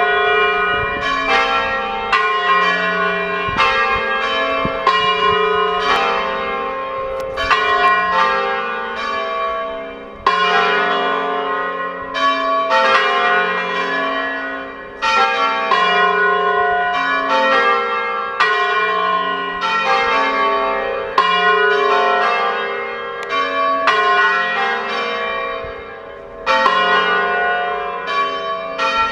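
Full peal of a four-bell church tower tuned in F, the bells swinging and striking together. Loud overlapping strokes come every second or two, each ringing on into the next: the plenum, or solemn ringing.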